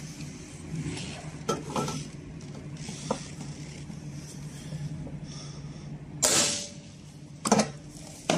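Capacitor-discharge stud welder firing an M8 stainless steel stud onto painted corrugated steel sheet: a single sharp crack with a short fizzing tail about six seconds in. Light clicks come before it as the gun is set, and a second sharp metallic knock follows about a second later, over a steady low hum.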